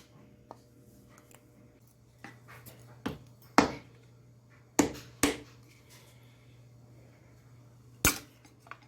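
Hammer knocks driving a wedge into the top of an axe handle to set the head. A few light taps come first, then sharp knocks in two pairs about three and five seconds in and one more near the end.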